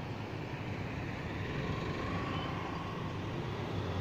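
Steady background noise of road traffic.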